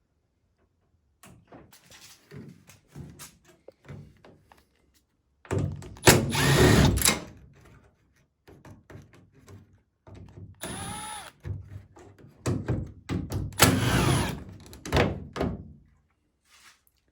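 Knocks and clatter of tools and objects being handled, with two loud rushing bursts and a brief whine near the middle.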